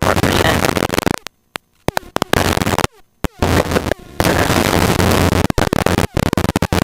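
Bursts of loud rushing noise that cut in and out abruptly several times, with near silence between them: helicopter cabin and wind noise coming through a voice-activated intercom microphone as it opens and closes.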